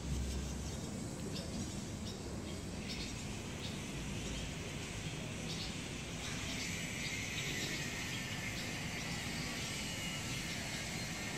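Swallows, fledglings and adults, giving short scattered chirps over a steady background rumble. About halfway through a faint steady high whine joins in.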